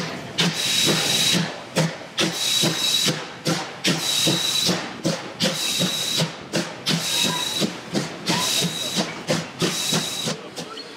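Steam locomotive of DR class 35.1 (23.10) working a train, heard from a carriage window. Loud, rhythmic hiss of steam about once a second, with low chuffs in between.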